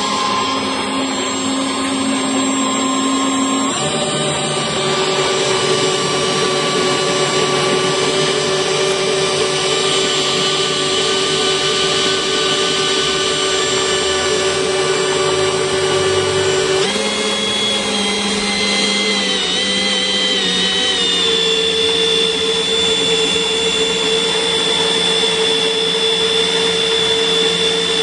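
Power drill running steadily as it turns a homemade coil winder, winding insulated copper building wire into a coil while a blade strips off the insulation. Its pitch steps up about four seconds in and shifts again around seventeen seconds.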